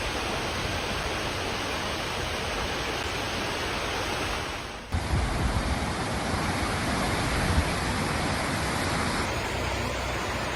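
Steady rushing water noise, an even hiss. About five seconds in it cuts abruptly to a different rushing sound with low rumbling gusts, and it changes again near the end.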